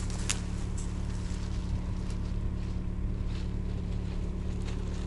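Small petrol engine running at a steady, even idle, with its ignition coil working again after a fault.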